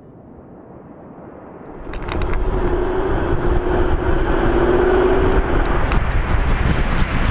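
Mercedes G-Class 4x4 driving on a gravel track, heard from a bonnet-mounted camera. Engine and tyre noise fade in over the first two seconds, then run loud and steady, with an engine note rising slightly.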